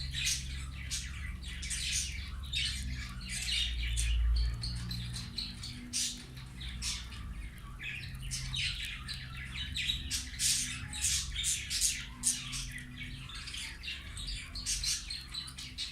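Budgerigars chattering, with rapid, continuous high-pitched chirps and squawks over a steady low hum.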